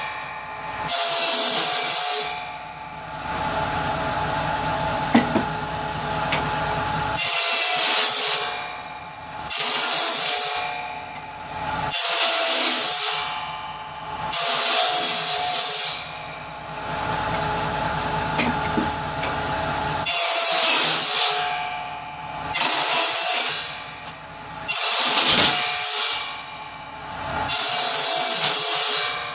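Power saw running steadily and cutting through pieces of firewood for kindling, about nine cuts of roughly a second each, with the motor running on between them.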